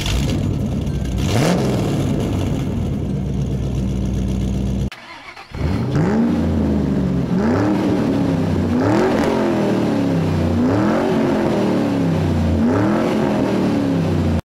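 Race car engine sound effect: the engine starts and runs with a rev, then after a short break it accelerates through the gears. Its pitch climbs and drops back about five times.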